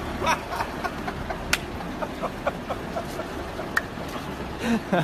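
City street noise with traffic running steadily, broken by two sharp clicks, one about a second and a half in and one near four seconds.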